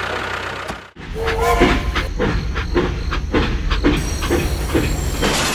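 Steam locomotive sound from a toy train: a short rising whistle, then steady chuffing at about two strokes a second. Before it, a steady hum cuts off about a second in.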